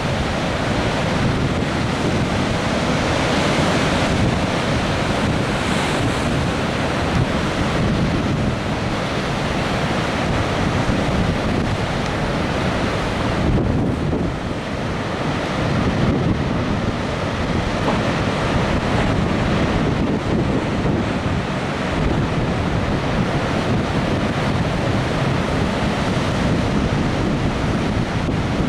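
Ocean surf breaking on the shore, with wind buffeting the microphone.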